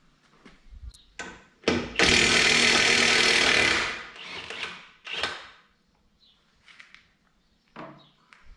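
Power tool run on a tractor wheel's nuts, one steady run of about two seconds, then a few short bursts.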